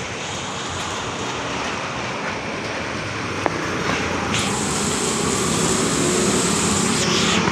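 Road traffic in heavy rain: a steady wash of noise with tyres on a wet road. A higher hiss joins about four seconds in and fades near the end, with one sharp click midway.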